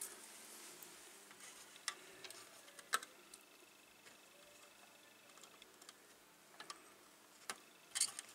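Scattered light clicks and taps, a few of them sharper, as a soldering iron and tweezers work a solder tag on a tube radio's terminal strip.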